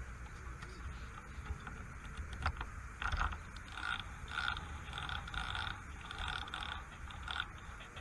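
Hardy Altex No. 2 Mk V fixed-spool reel being wound, its gears whirring in a regular pulse of about two a second that starts about three seconds in.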